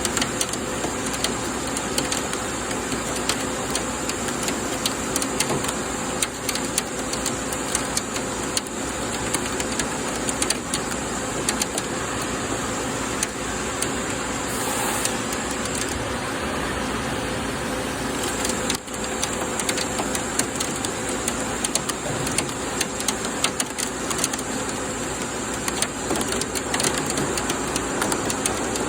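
Doosan PUMA GT2600 CNC lathe turning a stainless steel (SUS316) flange with a CNMG insert. The machine runs with a steady hum while coolant spray and chips make constant small ticking and rattling. There is a brief drop in the sound about two-thirds of the way through.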